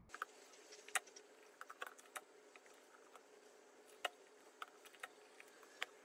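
Faint, irregular light clicks and taps of hands handling a small wooden drawer cabinet and pieces of double-sided tape, over a faint steady room hum.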